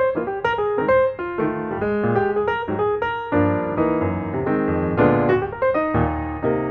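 Background piano music: a melody of quick notes over held chords.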